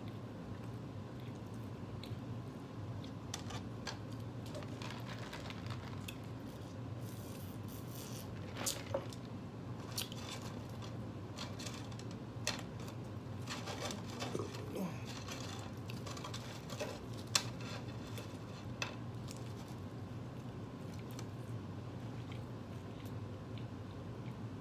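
A person eating close to the microphone, chewing and biting into a cheeseburger and fries, with scattered short clicks and crackles. A steady low hum runs underneath.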